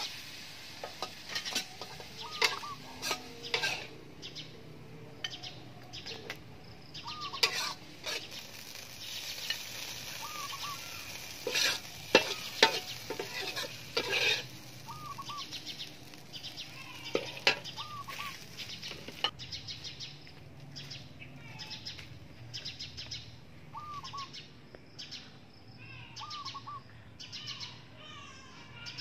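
Ginger chicken sizzling in a pan while a metal spatula stirs, scrapes and clinks against it; the frying and scraping stop about two-thirds of the way through. A bird calls a short repeated note every few seconds throughout.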